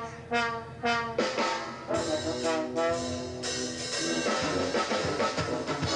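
Brass band of cornets and horns playing live with drums: short, detached chords in the first second or so, then longer held chords.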